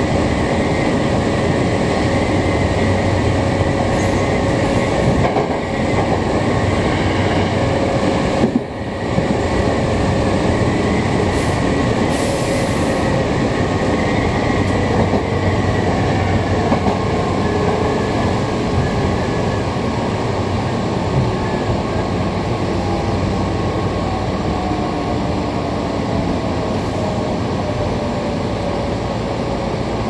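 Hankyu 6000 series resistance-controlled electric commuter train running along the line, heard from inside the front cab: a steady rumble of wheels on rail and running gear. In the second half a faint whine slowly falls in pitch.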